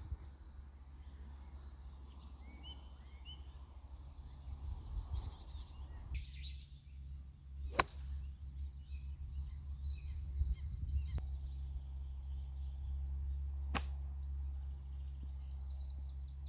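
Two sharp clicks of a golf club striking the ball, about eight and fourteen seconds in, over small birds chirping and a low steady rumble.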